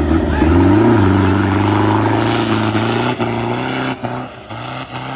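Diesel engine of an off-road 4x4 truck revving hard under full throttle, pitch rising about a second in and then holding, fading as the truck pulls away.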